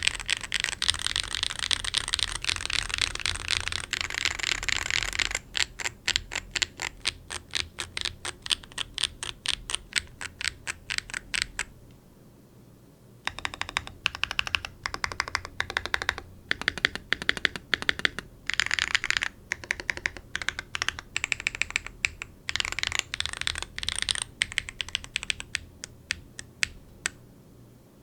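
Mechanical keyboard with lubed Gateron Baby Kangaroo tactile switches on an aluminium plate with case foam and DCS keycaps, being typed on. It opens with a fast, dense run of keystrokes, then evenly spaced single presses at about four a second. After a pause of over a second comes irregular bursts of typing.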